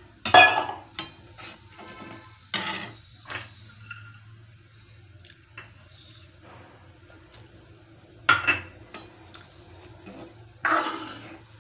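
Metal spatula scraping and knocking against the pan while stirring dal, in several separate strokes, the loudest right at the start and two more strong ones near the end, over a low steady hum.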